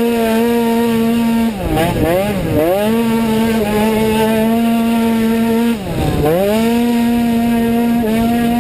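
Automatic racing scooter's engine at full throttle, its pitch held steady at high revs by the automatic transmission, with wind noise on the helmet microphone. The revs drop briefly and climb back twice around two seconds in, and once more about six seconds in.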